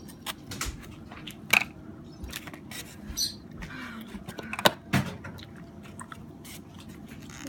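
Small scattered clicks and light taps of handling a phone's parts and a small tool, with two sharper clicks about one and a half and four and a half seconds in.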